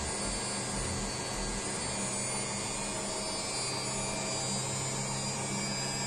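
Bosch Maxx 7 front-loading washing machine's motor and drum spinning with a steady whir, running up slowly through about 500 to 540 rpm in the spin stage of its service test mode.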